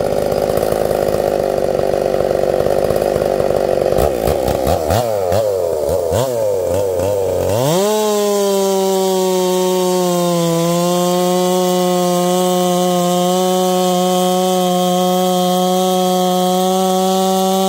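Ported Stihl chainsaw running, revved up and down a few times about four seconds in, then held at full throttle as it cuts steadily through a large log, the pitch sagging a little under load.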